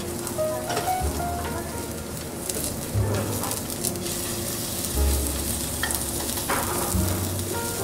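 Soy-glazed chicken skewers sizzling over glowing charcoal, with a steady hiss and scattered sharp crackles.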